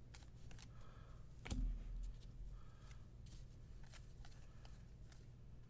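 Faint flicks and rustles of a stack of baseball cards being flipped through by hand, with a soft knock about a second and a half in.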